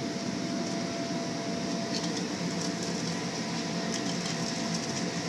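Steady whirring drone of an inflatable bounce house's electric air blower, with a thin steady whine over it and a few faint light ticks.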